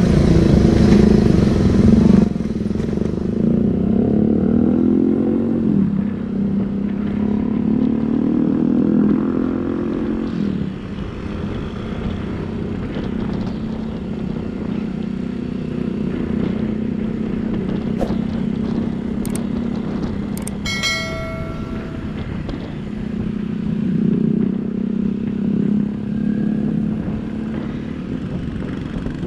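Motorcycle engine running on the move. It rises in pitch, drops at a gear change and rises again in the first ten seconds, then runs steady. A loud rushing noise stops about two seconds in, and a short horn beep sounds about two-thirds of the way through.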